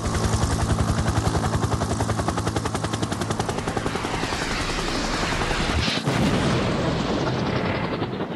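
Intro sound effect: a rapid, evenly spaced rattle of many sharp strokes, like sustained automatic fire, with a single sharp hit about six seconds in after which the sound turns duller.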